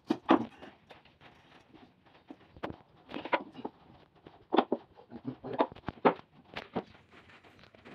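Solid teak chair parts knocking and clunking as they are handled and fitted together, in a series of about eight irregular knocks with quiet gaps between them.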